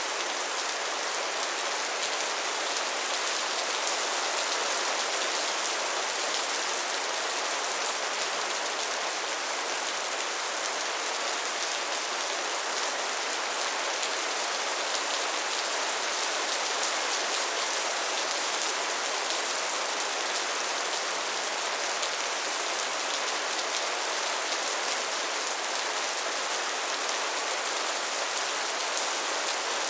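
Steady soft rain falling on a surface, an even hiss of many small drops with no change in strength.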